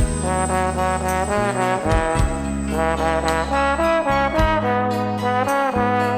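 Instrumental pop-ballad music. A sustained lead instrument carries the melody, gliding between notes, over a steady bass and a light ticking beat.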